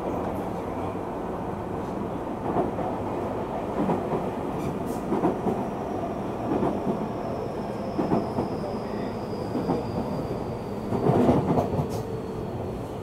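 Tokyu 3000-series electric train running, heard inside the car: a steady rumble of wheels on rail with a clack from the rail joints about every second and a half. The sound grows louder for a moment near the end, and a faint high tone slides slowly downward through the second half.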